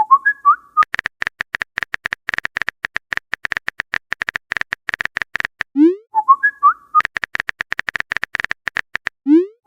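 Phone-keyboard typing clicks in fast runs of several seconds, broken by a short whistled message-notification chirp, a rising swoop then a few warbling notes, at the start, about six seconds in and again at the end.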